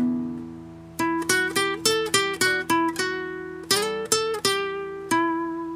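Acoustic guitar playing the closing bars of a psalm accompaniment: a chord rings and fades, then about a second in a run of picked single notes follows, settling on a last held note near the end.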